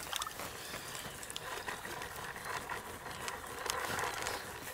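Spinning reel being cranked steadily, winding in line with a small crucian carp on the hook, with a few faint clicks along the way.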